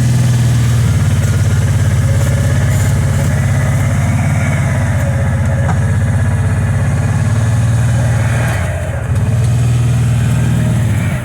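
Kawasaki Teryx 800 side-by-side's V-twin engine running steadily. Near the end it briefly drops off and then picks up again.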